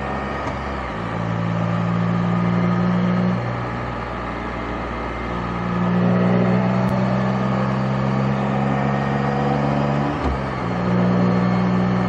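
Motorcycle engine running under way at road speed, with wind noise. Its note swells about a second in and again around five seconds. About ten seconds in it dips briefly with a short thump, then picks up again.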